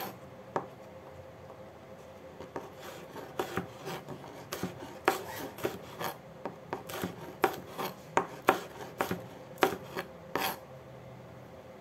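Chef's knife slicing red chilies on a cutting board: a run of irregular knocks of the blade meeting the board, with rasping slicing strokes between them, stopping about a second before the end.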